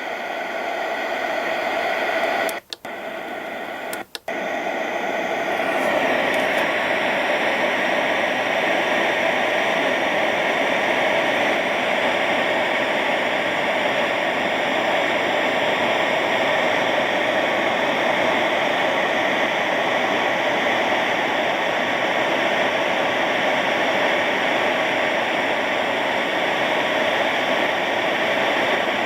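Static hiss from a radio receiver's speaker, tuned off frequency with its beat frequency oscillator on. It cuts out briefly twice in the first few seconds as the radio is retuned, then runs steady.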